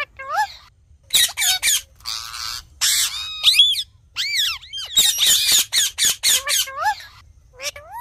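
Ringneck parakeets squawking and screeching in a rapid run of short calls that swoop up and down in pitch. Harsher rasping screeches come about two to three seconds in, and a dense burst of calls follows around five to six seconds in.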